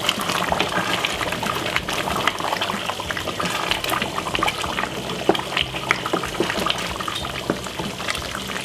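Thick chicken stew sauce simmering in a pot, bubbling with many small pops, while a wooden spoon stirs through it.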